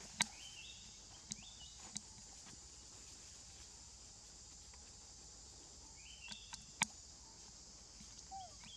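Steady high-pitched drone of insects in forest trees. Short stepped chirping calls come in twice, about half a second in and again around six seconds. Several sharp clicks sound over the top, the loudest a little before the end.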